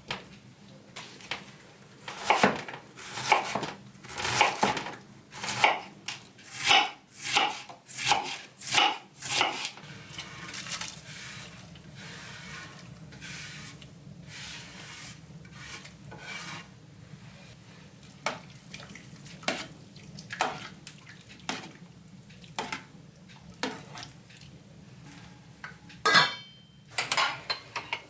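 Kitchen food preparation with dishes and utensils. A run of regular strokes comes about twice a second at first, then lighter clinks and scattered knocks of cookware and cutlery, with one louder knock near the end.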